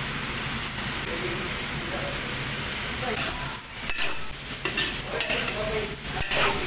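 Sliced bottle gourd and carrots sizzling in a hot wok. About halfway through, a spatula starts stirring them, scraping and knocking sharply against the wok a couple of times.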